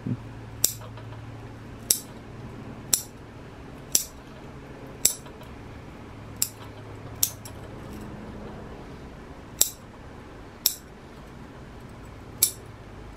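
Small bonsai scissors snipping the shoots of a sekka hinoki cypress: about ten crisp snips at irregular intervals of roughly a second. The cuts trim back the new growth on top of each branch to shape it into flat pads. A faint low hum lies underneath.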